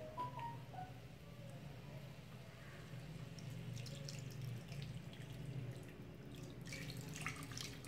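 Water poured from a jug into a kadhai of jackfruit and potato curry, trickling and splashing into the pan, with louder splashes near the end over a steady low hum.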